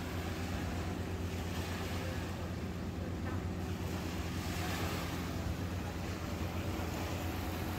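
Steady wind rumble buffeting a phone's microphone at the beach, over a soft hiss of small waves on calm water.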